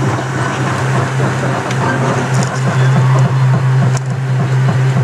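Excavator engine running steadily, with a few crunches of sheet metal as its bucket presses down on a Honda station wagon's roof.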